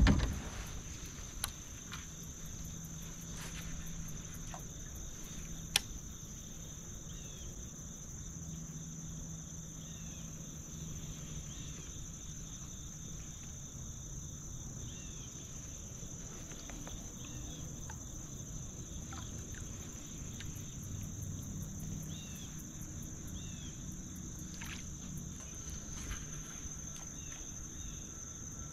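Steady, unbroken high-pitched insect chorus, with a few faint short chirps scattered through it and a single sharp click about six seconds in.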